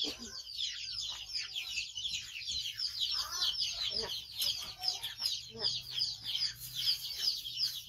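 A continuous chorus of many small birds peeping and chirping. The short, high, falling chirps come several a second and overlap, without a break.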